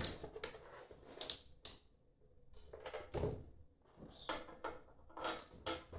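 Irregular clicks, taps and light knocks of hands-on assembly: a power push-button switch and its wire being handled and fitted into a battery case's front panel.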